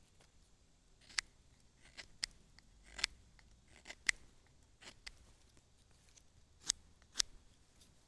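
Victorinox Fieldmaster Swiss Army knife's large blade shaving a wooden stick: about ten short, crisp slicing strokes at irregular intervals.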